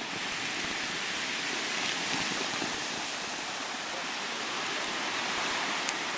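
Ocean surf washing in over lava entering the sea: a steady rushing hiss of water against the hot flow.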